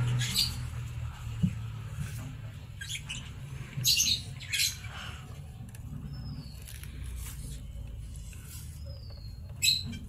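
Sun conures in the nest box giving about five short, raspy squawks, with two thin, falling peeps in the second half.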